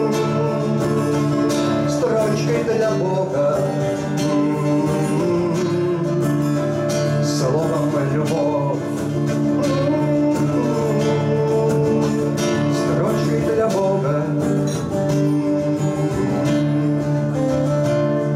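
Two acoustic guitars, a classical guitar and a black steel-string acoustic, playing together in an instrumental passage of a song.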